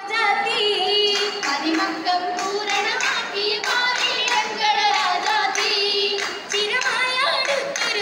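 Girls singing a Mappila song in chorus for an Oppana dance, with steady rhythmic hand clapping from the dancers.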